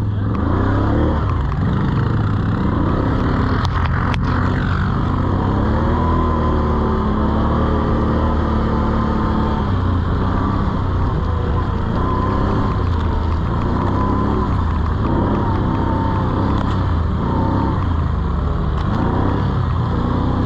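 800 cc ATV (quad) engine running under load as it is ridden, revving up and down repeatedly so its pitch keeps rising and falling. There are two sharp clicks about four seconds in.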